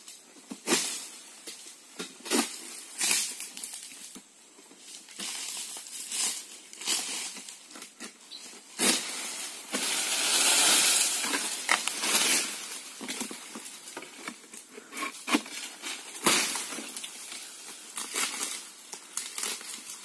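Oil palm fronds rustling and cracking as a long-pole egrek sickle is worked in the palm's crown, with irregular sharp snaps and a longer crashing rustle about ten seconds in.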